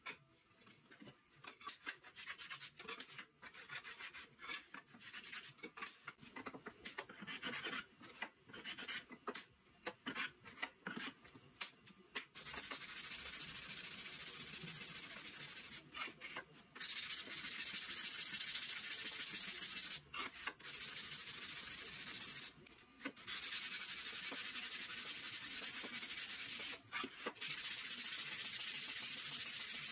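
Hand-sanding the bevelled edge of a thin maple drawer-bottom panel: irregular short scraping strokes at first, then from about twelve seconds in a steady, louder hiss of abrasive on wood, broken by a few brief pauses.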